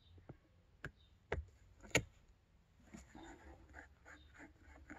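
A screwdriver working in a carburetor body, making a few light metallic clicks (the loudest about two seconds in) with faint scraping and handling between them.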